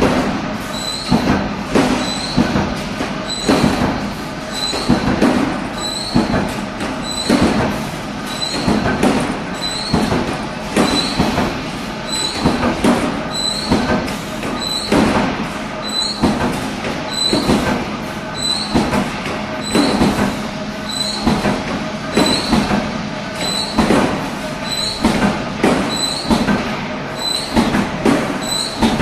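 Automatic punch press with a sheet feeder running continuously, a punching stroke about once a second over a steady motor hum.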